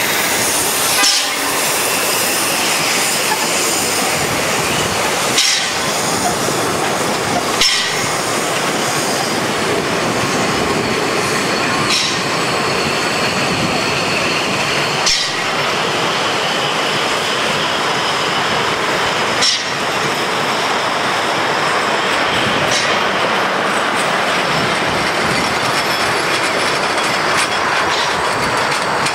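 A train of 750 mm narrow-gauge passenger coaches rolling slowly past, the wheels clicking over rail joints every few seconds over a steady rushing noise, with a faint high wheel squeal.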